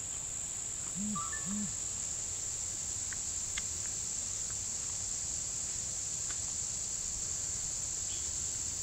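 Steady high-pitched insect chorus droning without a break, with a few faint clicks.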